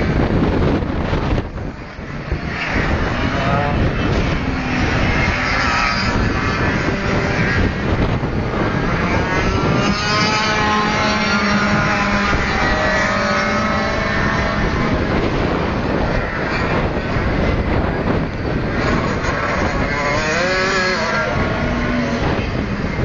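Several 125cc six-speed racing karts with two-stroke engines running at high revs on the track, their pitch rising and falling as they accelerate, shift and pass. The sound dips briefly about two seconds in, then stays loud.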